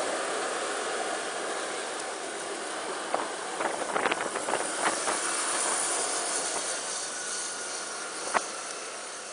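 Wind rush and road noise on a camera riding a moving Honda PCX scooter, with a cluster of sharp clicks about three to five seconds in and one louder knock near the end. The noise eases off slowly over the last few seconds.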